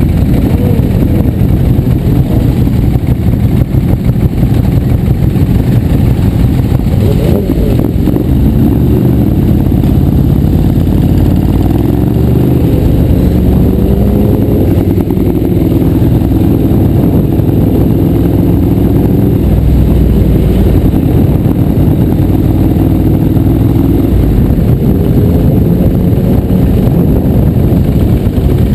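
Motorcycle engines riding off in a group: the near bike's engine pulls away and picks up speed, its pitch climbing and stepping up a few times, most clearly about twelve and twenty-four seconds in. Under it runs a heavy, steady low noise.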